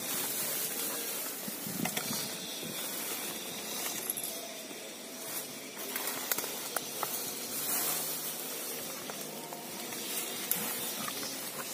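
Steady high hiss of outdoor background noise, with a few faint clicks and rustles.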